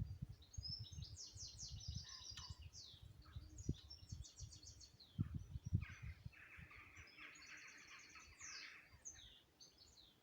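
Songbirds singing: repeated rapid high trills and chirps, with a lower buzzy trill from about six to eight and a half seconds in. Under them is an irregular low rumbling that dies away about seven seconds in.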